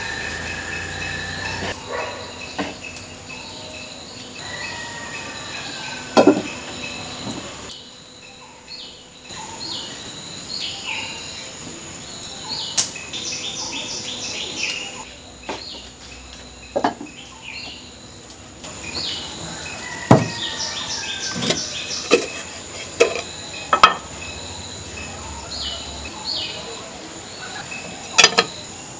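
Birds chirping and a steady high insect drone, with a few sharp knocks and scrapes of a scoop against a clay pot as flour is measured out.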